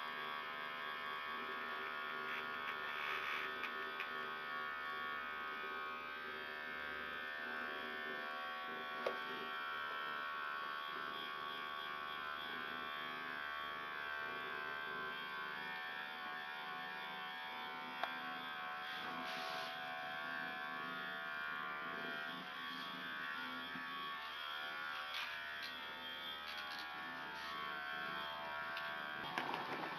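Small handheld vibrating massager with light-up roller balls, its motor buzzing steadily as it is worked over a cat's fur, with two brief clicks along the way.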